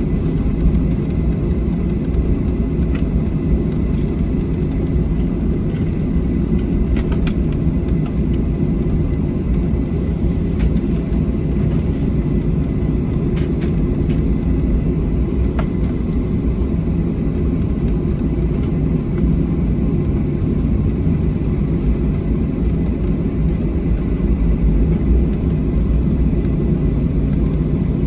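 Boeing 737-700's CFM56-7B jet engines heard from inside the passenger cabin as a steady, even low rumble with no rise or fall in pitch. A few faint ticks sound in the first half.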